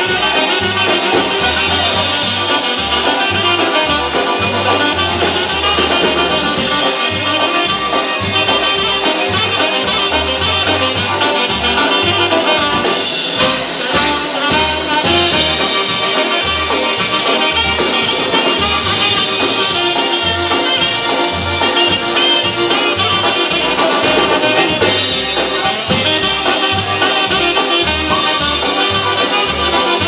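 Polka band playing live, an instrumental passage with brass and saxophone over a bass line pulsing steadily on the beat.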